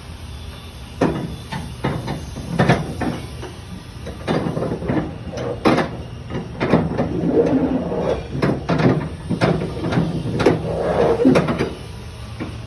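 Irregular clanks, knocks and rattles of tie-down strap hardware being handled while a load is secured on a flatbed trailer.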